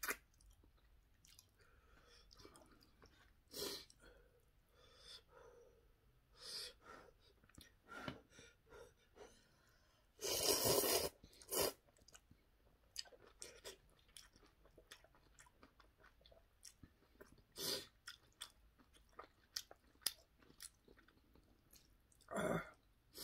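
Close-up eating sounds of a person chewing and slurping instant ramyeon noodles: scattered wet mouth clicks and smacks, with one loud noisy burst lasting about a second, a little after ten seconds in, and a shorter one near the end.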